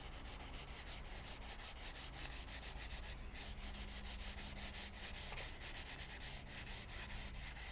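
Wax crayon scribbled rapidly back and forth across paper, colouring in a large area: a faint, steady, scratchy rubbing of quick strokes, several a second.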